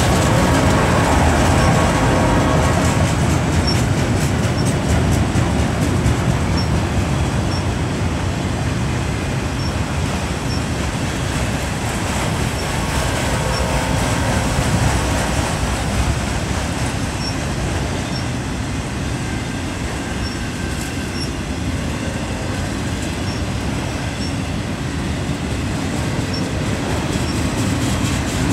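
Autorack freight cars rolling past at close range: a steady rumble of steel wheels on the rails.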